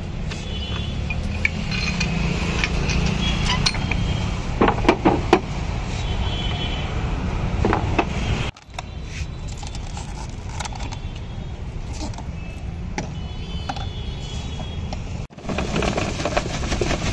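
Glass goli soda bottles (marble-stoppered Codd-neck bottles) clinking and chinking against each other as they are handled on a soda cart, over steady street traffic. The sharpest clinks come about five seconds in.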